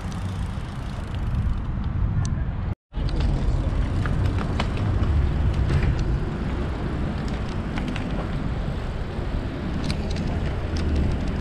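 Riding noise from a moving bicycle: a steady low rumble of wind and road on the camera's microphone, with a few light clicks. The sound cuts out for a moment about three seconds in.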